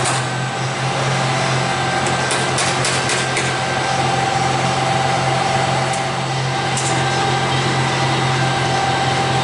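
Steady low machine drone with a faint, even whine above it, unchanging throughout, and a few light clicks about two to three and a half seconds in and again near seven seconds.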